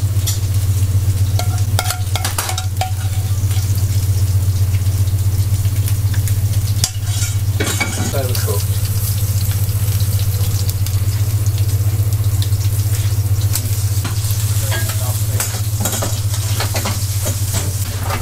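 Seafood sizzling on a hot kitchen grill and in a frying pan, over a steady low hum, with occasional clicks and scrapes of metal tongs and utensils.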